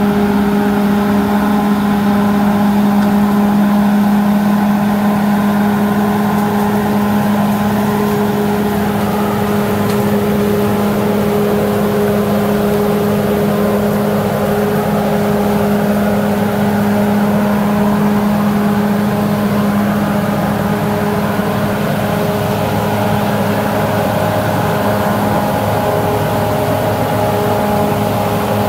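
Crawler bulldozer's diesel engine running steadily under work with an even, constant drone; the pitch shifts slightly near the end.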